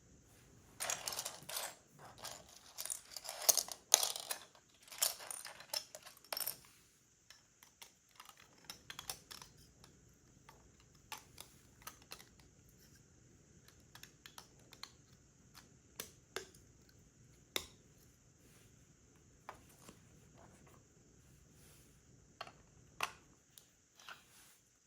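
Plastic LEGO pieces clicking and rattling: a busy clatter of pieces in the first six seconds or so, then scattered single clicks as bricks are handled and pressed together.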